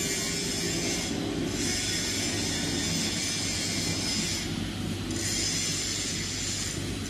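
PP/HDPE monofilament extrusion line running: its motors and stretching rollers give a steady low hum under a high whine and hiss. The high hiss fades briefly twice.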